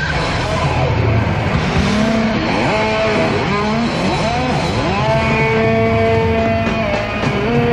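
Live rock band playing, led by a distorted electric guitar whose notes slide up and down in pitch and then hold long, over bass and drums.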